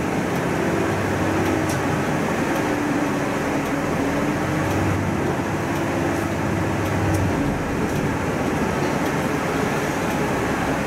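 Bus engine and road noise heard from inside a moving city bus: a steady rumble with an engine hum that drifts a little in pitch.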